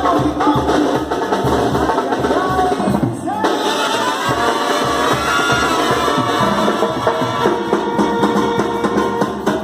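Upbeat Latin dance music with singing, drums and percussion over a steady beat. The bass beat drops out briefly a little past three seconds, then comes back in.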